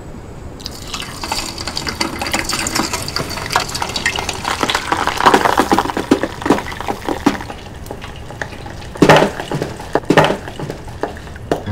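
Food frying in hot oil: a dense crackling and spattering sizzle that starts about a second in, with two louder sharp clatters around nine and ten seconds in.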